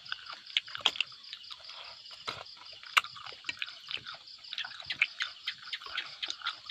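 Insects chirring steadily in a high band, with irregular sharp clicks and taps scattered through.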